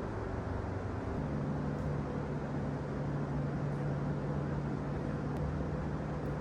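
A motor drones steadily over a low rushing background, its hum settling in about a second in and holding.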